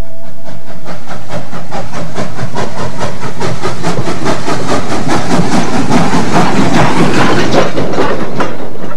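Narrow-gauge steam locomotive working, its exhaust chuffing in a rapid, even beat with steam hiss, growing louder as it approaches, then cut off abruptly at the end.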